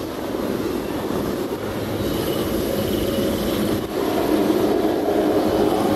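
Helicopter flying an aerobatic display with a smoke trail: its turbine engine and rotor make a steady whirring noise that grows louder about four seconds in.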